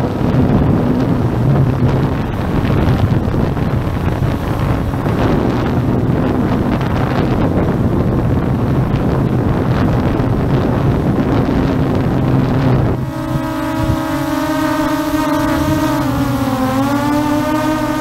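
ZLL SG906 Max 2 quadcopter's propellers and motors running in flight, with heavy wind buffeting on the microphone. About thirteen seconds in, the wind noise drops and the propeller hum comes through as a steady whine that dips in pitch briefly and recovers as the motors adjust.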